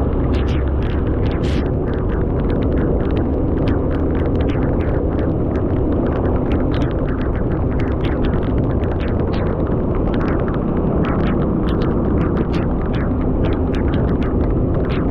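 Steady rain, with many irregular sharp drop hits close to the microphone over a continuous low rumble.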